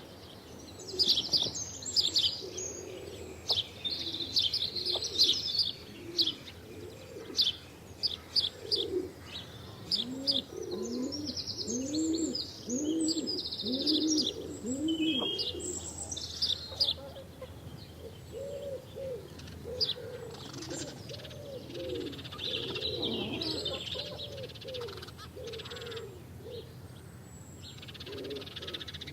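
House sparrows chirping, a busy run of short, sharp chirps. From about ten seconds in, a lower call repeats underneath in quick rising-and-falling notes.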